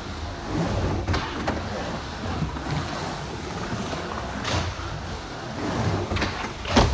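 Skateboard wheels rolling over a concrete bowl, a steady rumble that swells and fades as the board carves the transitions. Sharp clacks break in about a second in and again after four seconds, with the loudest near the end as the board comes back down onto the concrete from an air.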